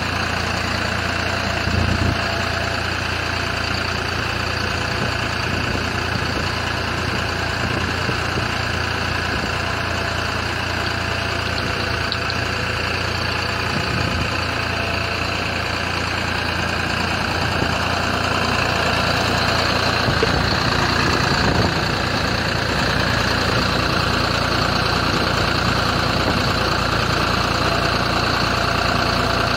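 Tractor engine running steadily while driving the hydraulic rotating brush that sweeps sand dust off solar panels. It gets a little louder about two-thirds of the way through.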